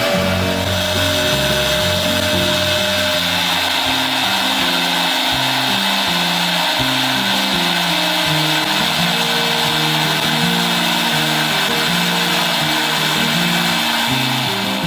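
Background music over a power tool running steadily with a high-pitched whine, which starts about half a second in.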